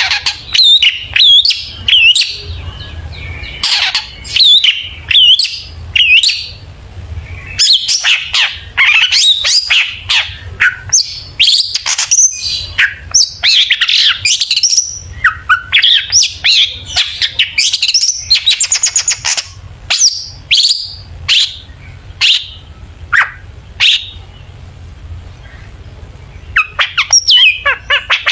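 Long-tailed shrike (cendet) singing a fast, varied song of chirps, whistled slurs, rapid trills and harsh scratchy notes, full of phrases copied from other birds. It eases off briefly past the middle, then starts up again near the end.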